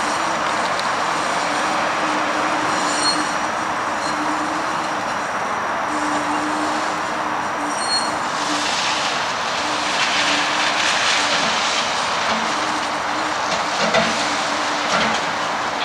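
Flexity Outlook streetcar running around a tight loop curve, with an on-and-off electric hum over the rolling noise. There are brief high wheel squeals about three and eight seconds in, then a rasping hiss of wheels on the curved rail from about halfway on.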